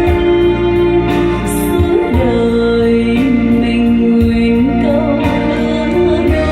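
A song played back: a singer holding long, gliding notes over instrumental accompaniment with a steady beat.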